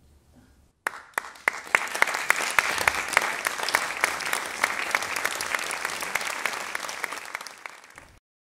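Audience applauding: a few sharp claps about a second in, quickly filling out into steady clapping that cuts off suddenly near the end.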